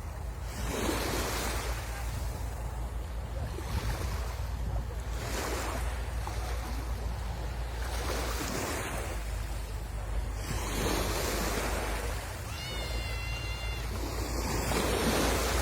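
Sea waves washing in and out, surging about every two to three seconds, over a steady low rumble of wind on the microphone. About two-thirds of the way in, a short, high, steady tone sounds for about a second.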